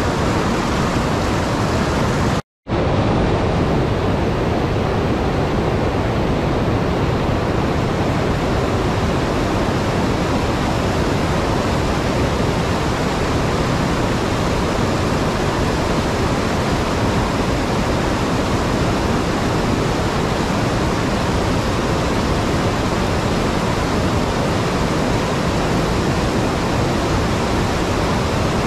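Steady rush of whitewater pouring over a low dam spillway and churning through rapids. The sound cuts out for a moment about two and a half seconds in, then resumes unchanged.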